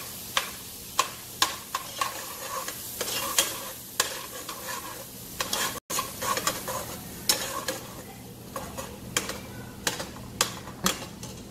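A utensil stirring melted butter in a metal pot, clinking against the pot at irregular intervals, with a steady sizzle of hot butter underneath. The clinks stop just before the end.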